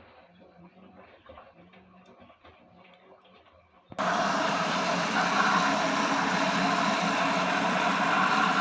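LG WD-1054FB washing machine: a quiet low hum with faint ticking, then about four seconds in a loud, steady rushing noise starts abruptly and runs on until it stops sharply.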